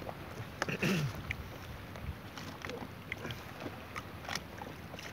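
Steady wind and sea noise with scattered faint clicks and rustles, and a brief low sliding sound about a second in.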